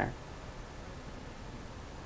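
Faint steady hiss with a low hum underneath: room tone from the microphone.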